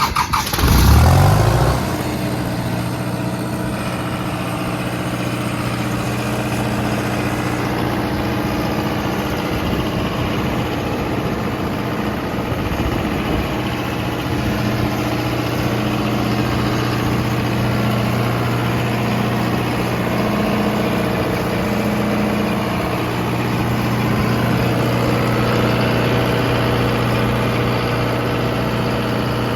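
John Deere diesel engine of a 45 kW generator trailer starting. It catches and picks up speed in the first two seconds, then runs steadily at a constant speed.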